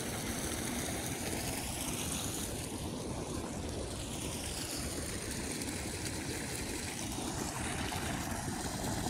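Steady rush of wind and road noise from a moving vehicle on the road.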